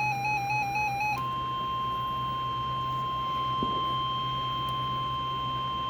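A buzzy electronic two-note warble stops about a second in, and the NOAA Weather Radio 1050 Hz warning alarm tone takes over as one steady, loud beep. The tone announces that a warning message follows.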